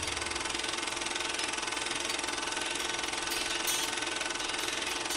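Film projector running: a steady, rapid mechanical clatter.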